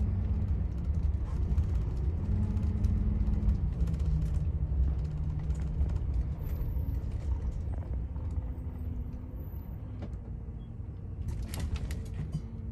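Vehicle engine and road noise heard from inside the cab while driving slowly, a low steady rumble whose engine hum shifts in pitch a few times as the speed changes.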